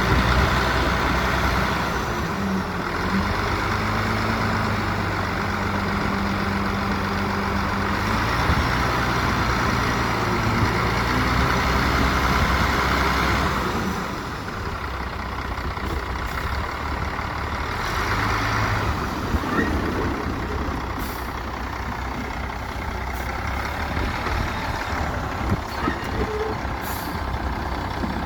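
Heavy diesel engines of dump trucks and a bulldozer running at work. The sound is louder for the first half and drops somewhat about halfway through.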